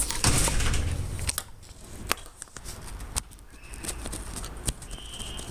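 Rustling and handling noise in the first second or so, then a scattering of short, sharp clicks and taps.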